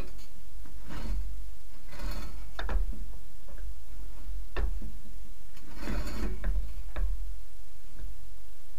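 Metal tools and parts being handled during U-joint work: irregular clicks, clinks and short scrapes, a second or so apart, over a steady low rumble.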